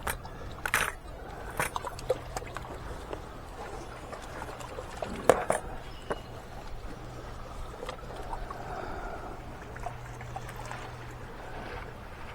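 Water trickling and splashing, with scattered sharp knocks and clicks, the loudest about five seconds in, over a steady low hum.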